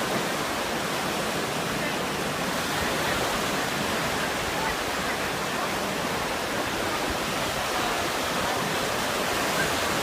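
Steady rush of breaking surf on a beach, an even roar of water.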